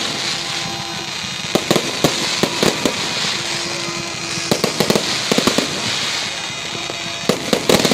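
Fireworks going off: clusters of sharp bangs, about a second and a half in, again around the middle and near the end, over a continuous crackle.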